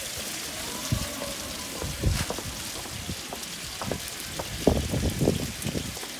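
A steady hiss with several soft knocks and faint background voices.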